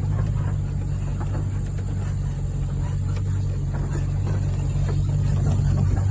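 Old Blue's engine running at a steady low speed while the vehicle is driven slowly, with faint small knocks and rattles over it.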